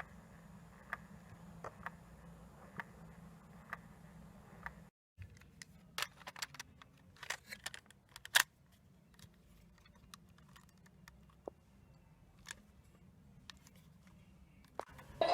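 Small mechanical clicks and taps from handling a Sony WM-D3 Walkman's mechanism: first a faint steady hum with a sharp click about once a second, then, after a short break, a quick run of irregular clicks and taps, followed by a few single clicks.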